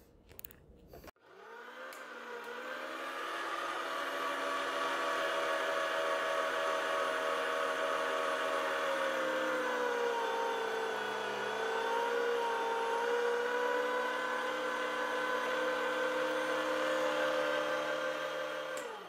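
STX Megaforce Classic 3000 electric meat grinder motor starting about a second in and spinning up, then running with a steady whir. Its pitch sags briefly midway as the push stick forces bread and the last ground chuck roast through the 1/8-inch die, and it winds down as it is switched off near the end.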